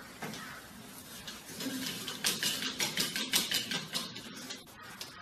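A cut-out lattice spinner sculpture on a wall, set turning by hand, spinning with a soft whir. From about two seconds in come many light, irregular clicks and rustles.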